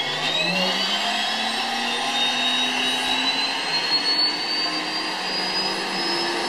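Small jet turbine engine spooling up: a steady whine that climbs slowly in pitch, with a lower tone rising alongside it.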